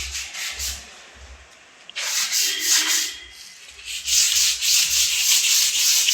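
Quick back-and-forth rubbing strokes, like hand sanding, in runs of several strokes a second that ease off about a second in and again around three seconds.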